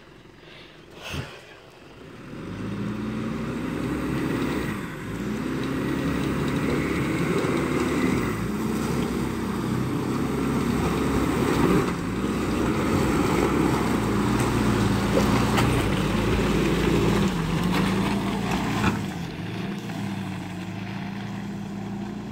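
Nissan Pathfinder R50 SUV engine working at low speed over a rocky, muddy off-road trail, its revs rising and falling again and again. A sharp click sounds about a second in, before the engine comes up. The engine is loudest through the middle as the SUV passes close, then settles to a lower, steadier note as it pulls away.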